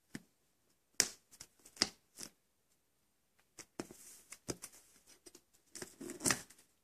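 Kitchen knife slicing and scraping through the packing tape on a cardboard shipping box: a few sharp scratches in the first couple of seconds, a short pause, then a longer run of rustling cuts, loudest near the end.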